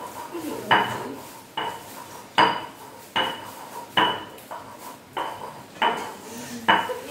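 Metal cookware being struck repeatedly: about eight sharp clanks a bit under a second apart, each ringing briefly.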